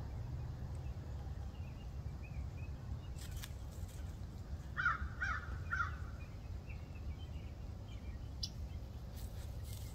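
A bird giving three short calls about half a second apart, with faint chirping from small birds and a steady low rumble throughout.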